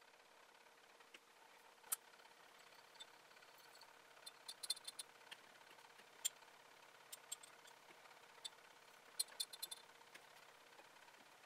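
Faint, sharp glass clinks of laboratory glassware being handled: a glass flask with a stir bar inside and a glass graduated cylinder. They come singly and in small clusters in the middle and near the end, each with a short high ring, over a low steady hum.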